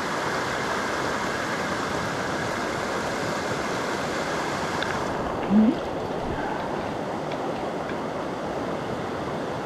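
Shallow, rocky mountain brook running steadily over stones: an even rush of water. About halfway through, a short rising tone briefly stands out above it.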